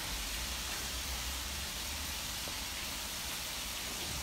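Cabrilla fish frying in a pan of hot oil on a gas burner: a steady sizzle.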